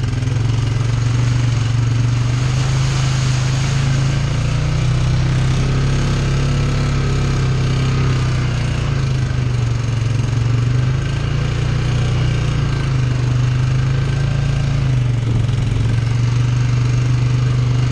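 ATV engine running steadily at low trail speed, heard from on board. Its drone rises and falls slightly with the throttle.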